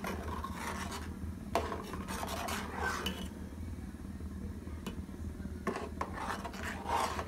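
Metal ladle scraping and stirring along the bottom of a metal pot of simmering milk, rice and khoya for kheer. It comes in three spells of strokes, with sharp metal-on-metal clinks about a second and a half in and again near six seconds. The stirring is kept up so the rice does not catch on the bottom.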